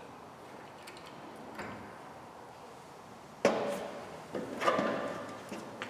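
Faint shop room noise, then about three and a half seconds in a sharp clattering knock with a brief metallic ring, followed about a second later by more clatter, as hard objects are handled and set down.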